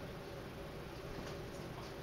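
Steady hiss and low hum of a poor-quality recording (room tone), with a few faint soft clicks.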